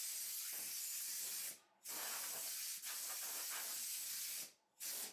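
A pressurised jet hissing in two long bursts with a brief break between them, then a short puff near the end.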